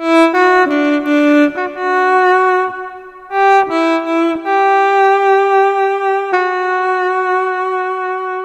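Sampled alto saxophone from the SampleTank app on an iPhone, driven by an Akai EWI USB wind controller, playing a slow single-line melody. It opens with several short notes, then settles into longer notes, the last held steadily from about six seconds in.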